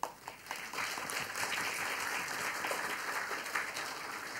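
Audience applauding. The clapping swells within the first second and then goes on steadily.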